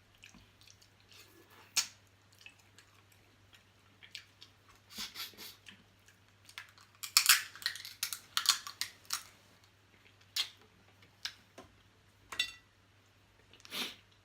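A person eating close to the microphone: scattered smacks and crackles of chewing, busiest about seven to nine seconds in, over a faint steady low hum.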